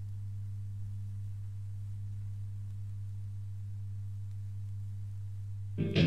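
A steady low electrical hum, with no other sound over it. Near the end, distorted electric guitars and the band crash in as a thrash metal song starts.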